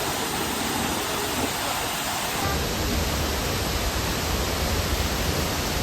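Steady rushing of a waterfall. A deep low rumble joins about halfway through.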